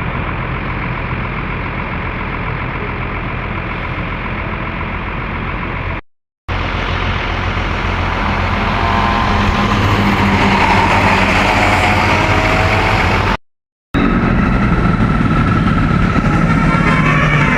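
Diesel engines of large tour buses running steadily as they pass, a low continuous rumble that breaks off into silence twice for about half a second.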